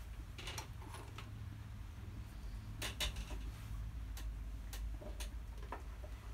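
A few faint, scattered clicks and taps, the sharpest about three seconds in, over a low steady hum.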